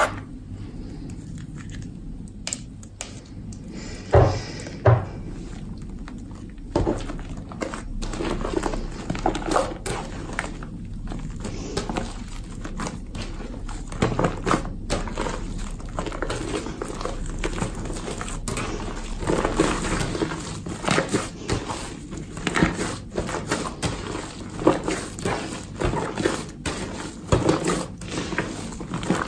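Hands kneading and squeezing shaving foam into a large soft slime, giving irregular wet squelches and crackling pops. Two sharp knocks stand out about four and five seconds in.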